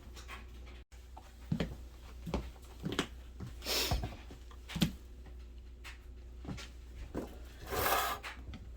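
Scattered light clicks and knocks of small tools and parts being handled and rummaged through, with two short breathy rushes of air, one about four seconds in and one near the end.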